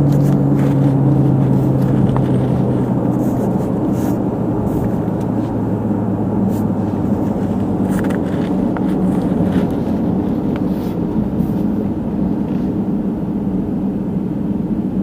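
Car driving at road speed heard from inside the cabin: a steady engine and tyre drone, its low hum easing down slightly in pitch over the first few seconds.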